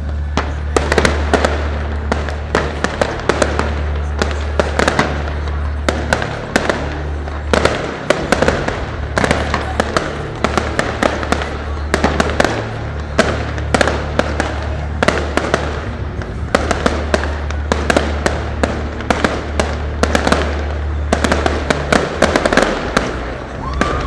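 Fireworks display going off in a rapid, continuous string of bangs and crackles, several reports a second, starting abruptly and loudly. Under the bursts runs music with a steady deep bass.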